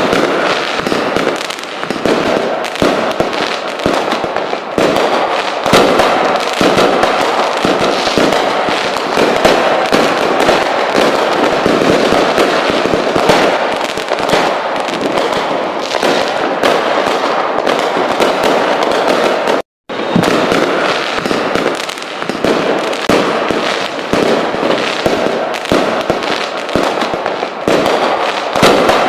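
Fireworks crackling and popping densely, many small sharp bangs in quick succession, broken once by a brief cut to silence about two-thirds through.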